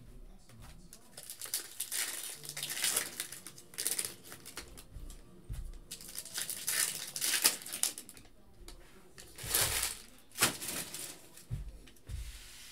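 Foil trading-card pack wrappers crinkling and tearing as packs are opened, with cards handled in irregular bursts. A few dull knocks near the end.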